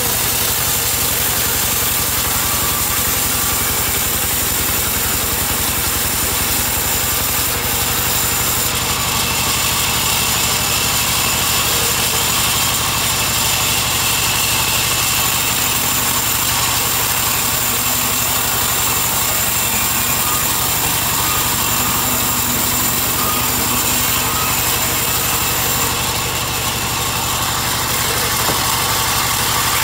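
Sawmill band saw running steadily and cutting lengthwise through a timber slab, a continuous mechanical drone with a steady high tone from the blade.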